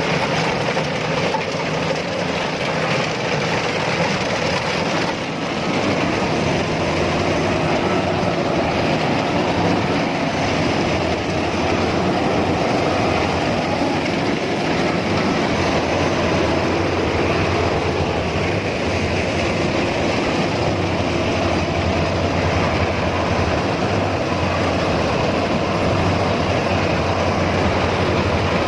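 Rice combine harvester running steadily: a continuous engine drone with the clatter of its machinery.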